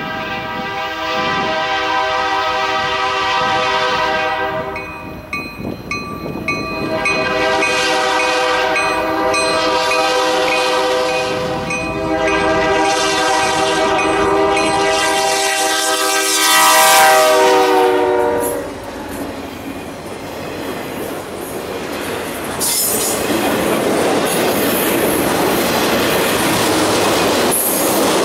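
Diesel locomotive air horn blowing for a grade crossing: a short sounding, then a long drawn-out blast whose pitch drops as the locomotive passes. Then loaded continuous-welded-rail flatcars roll by with a steady rumble and wheel clatter.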